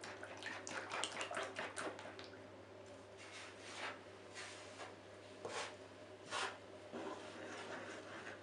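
Fork scraping quickly through eggs against a wooden pastry board, a fast run of short scratchy strokes, then fingers working flour into the egg with slower, separate swishing strokes.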